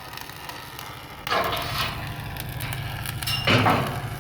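Metal parts being handled in a repair workshop: two short scraping clanks, the second louder with a brief metallic ring, over a steady low hum.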